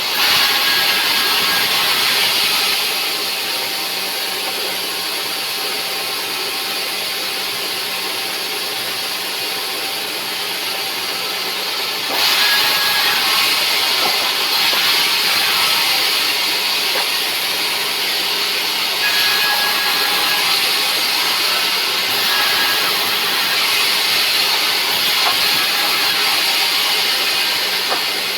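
Sawmill saw running steadily and cutting rubberwood, its hiss-like whine growing louder in three stretches while the blade is in the wood.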